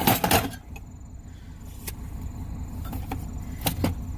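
A semi truck's turbo-diesel engine idling with a steady low rumble while it warms up. Over it, a loud scraping rustle in the first half second, then several short knocks and clinks as hand tools are moved around in a storage compartment.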